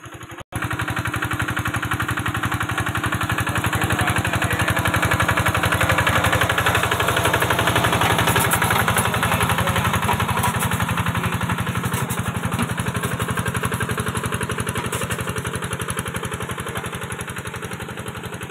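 Engine of a rice-paddy mud machine running steadily with a rapid, even beat as it works through a flooded field. A brief cut about half a second in; after it the engine grows louder over the next few seconds, then slowly fades.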